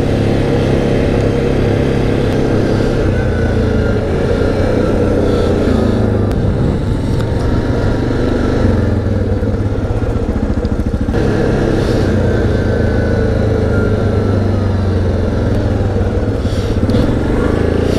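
Yamaha Grizzly 700 ATV's single-cylinder engine running while riding, its pitch rising and falling a little with the throttle. It runs very well after standing for about two months.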